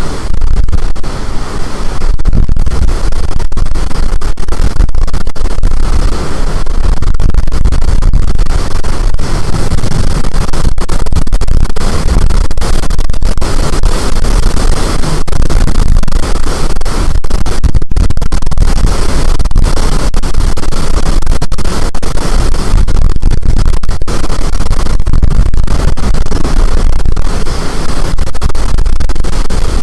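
High storm wind blowing hard against the microphone, a loud, unbroken rush that is heaviest in the low rumble and distorts throughout.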